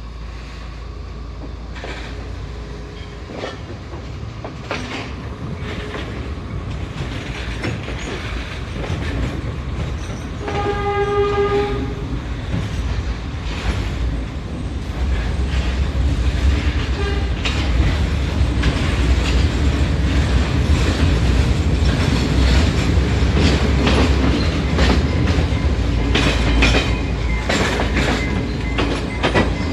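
Diesel train heard from on board, gathering speed, its rumble growing steadily louder with wheels clicking over rail joints. One horn blast of about a second and a half sounds about ten seconds in.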